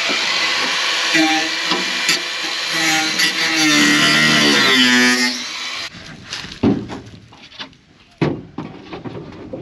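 Handheld cordless power tool running loudly against the aluminium floor frame of a small tinny, its pitch wavering under load, and cutting off about six seconds in. Then a few separate knocks and clunks as a timber floor sheet is handled in the aluminium hull.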